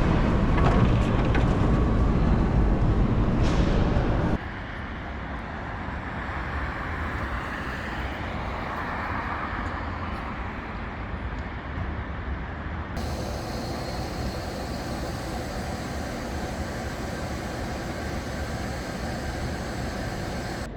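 Steady rumble and hiss of a moving vehicle, heard in three cut-together stretches: loud with a heavy low rumble for the first four seconds or so, then noticeably quieter.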